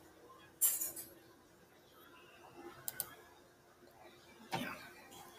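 Faint room tone with a steady low hum and a few soft clicks and short rustles, typical of a laptop trackpad or mouse being clicked to open a file picker.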